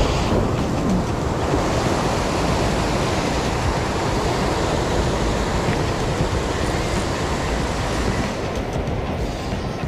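Ocean surf breaking and washing over rocks in a steady rush, with wind on the microphone.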